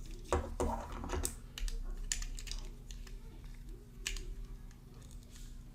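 Plastic Mega Construx building pieces being handled and fitted together: a scattering of light, sharp plastic clicks and taps, thickest in the first couple of seconds with another near the four-second mark.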